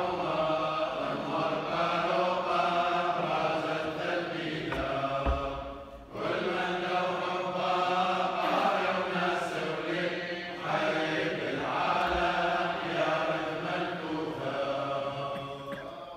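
Men's voices chanting Chaldean funeral prayers, long held melodic lines broken by a short breath pause about six seconds in.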